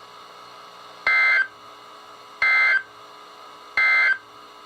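NOAA Weather Radio's SAME end-of-message code: three short, buzzy electronic data bursts, each about a third of a second long and spaced about a second and a half apart, over a low background hiss. It signals the end of the alert broadcast.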